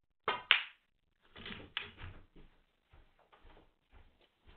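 Snooker shot: the cue tip clicks on the cue ball and a moment later the cue ball strikes an object ball with a sharp, louder click. Softer knocks follow, then muffled footsteps about every half second as the player walks around the table.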